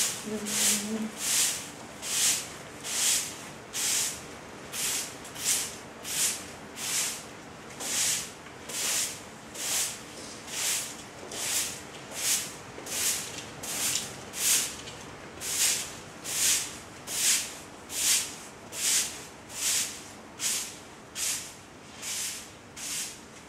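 Straw broom sweeping a stable floor in regular swishing strokes, a little more than one a second.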